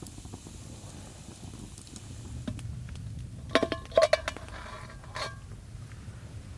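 Cookware or cutlery clinking: a few sharp metallic clinks that ring briefly, bunched together a little past the middle, with one more shortly after.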